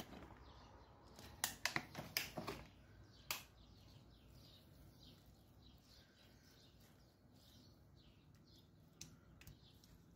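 Faint stirring in a steel pan: a wooden spoon knocks and scrapes as crumbled feta and grated cheese are mixed into wilted spinach filling. A handful of sharp clicks come in the first few seconds and two more come near the end.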